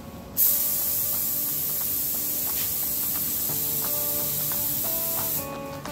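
SATA 1500 paint spray gun hissing as it sprays single-stage urethane paint: one steady pass that starts about half a second in and cuts off sharply near the end.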